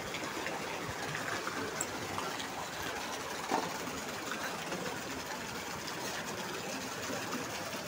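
Floodwater rushing steadily along a flooded road and past a drain grate, with one short louder burst about three and a half seconds in.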